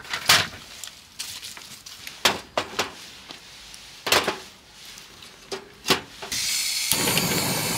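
Split firewood sticks knocking against each other and against a steel fire pit as they are set in by hand, a handful of sharp separate clunks. About six seconds in, a steady hiss starts and carries on.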